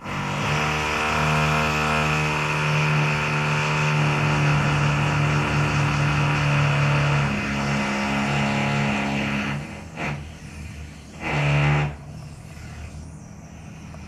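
Mother Norwegian Forest Cat purring loudly close to the microphone while her kittens nurse: a steady hum whose pitch shifts about seven seconds in, then it drops away, with two short loud surges near the end and a quieter purr after.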